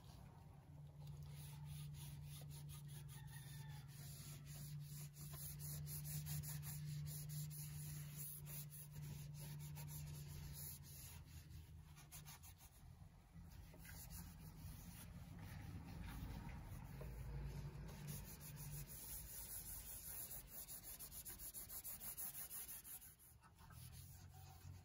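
Damp cloth rubbing and wiping over the ukulele's glossy finished wood, in faint, uneven strokes. A low steady hum lies under the first half.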